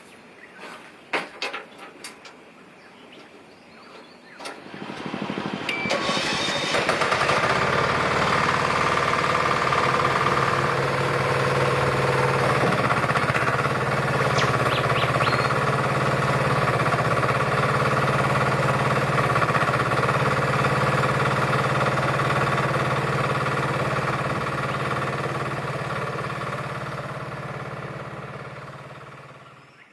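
UHI UME10 mini excavator's diesel engine starting and running steadily, building up about five seconds in and fading away near the end.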